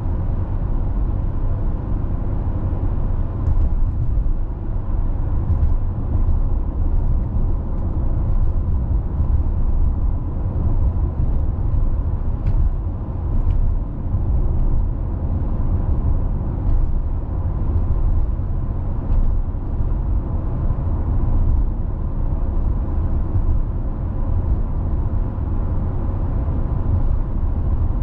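Car driving along at a steady pace: a constant low rumble of tyre and engine noise, with no change in speed.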